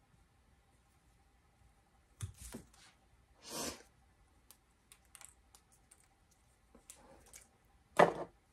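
Bonsai branch cutters snipping through a small Ficus benjamina branch a couple of seconds in, followed by a brief rustle of leaves as the cut piece comes away. Scattered light clicks follow, then a sharp knock near the end.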